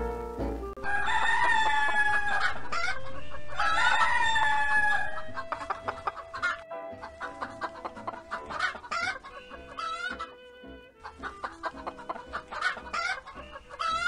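A rooster crows twice in two long calls, followed by chickens clucking in short, repeated calls.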